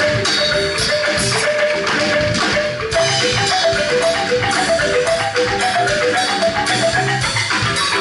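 Live traditional Sundanese ensemble music: a quick melody of short struck notes, like a xylophone, over light percussion. About three seconds in the music dips briefly, and the melody then carries on higher.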